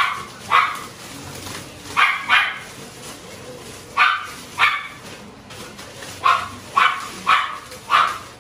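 A dog barking repeatedly: about ten sharp barks, in pairs with short gaps, then four in quick succession near the end.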